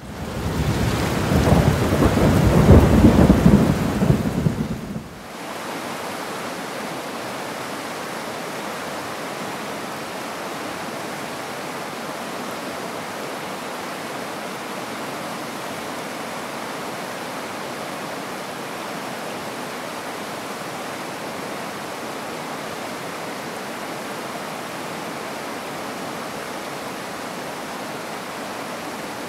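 A loud, deep rumble for the first five seconds, then the steady rush of a fast-flowing stream.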